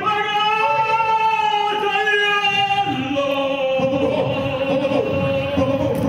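A song with a voice singing long held notes that step from pitch to pitch. From about three seconds in, a low thumping runs underneath.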